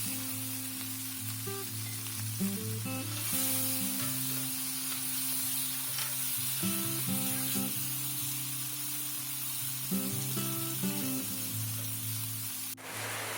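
Food sizzling as it fries in a pan, over soft background music. The sizzle changes abruptly near the end.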